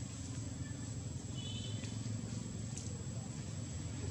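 Steady low rumble of background noise with a constant thin high whine above it, and a brief high chirp about one and a half seconds in.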